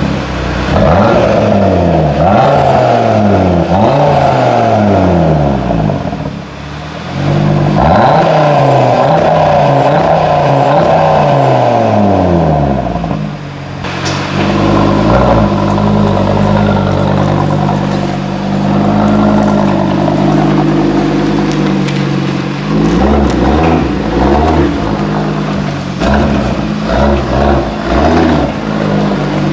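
Cupra Formentor VZ5's 2.5-litre five-cylinder engine sounding through an Akrapovič Evolution exhaust, revved again and again while standing, each rev rising and falling in pitch. About fourteen seconds in it settles to a steady idle, with a few short blips of the throttle near the end.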